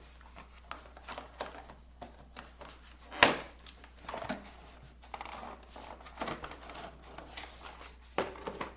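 A toy's cardboard box and packaging being handled and pried open: crinkling and rustling with scattered clicks, and one sharp, loud snap about three seconds in.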